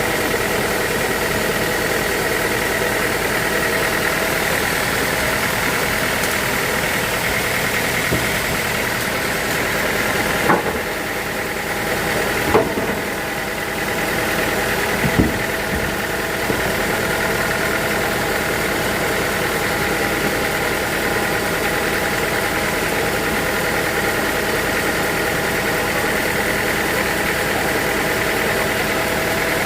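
Sawmill machinery running steadily, with a high whine over a low drone. Three sharp knocks come near the middle, about two seconds apart.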